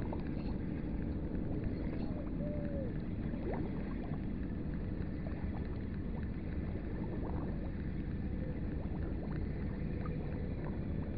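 Steady low rumble of wind and water noise, with no distinct events in it.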